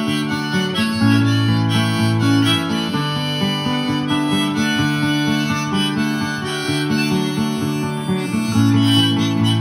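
Harmonica played in a neck rack, long held notes and chords, over a strummed acoustic guitar.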